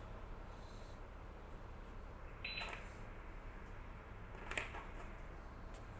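Plastic anatomy-model parts being handled and fitted together: a short scrape about halfway through and a sharp click a couple of seconds later, over faint room tone.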